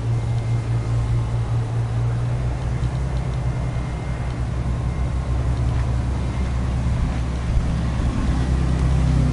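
A steady low hum with a deeper rumble beneath it.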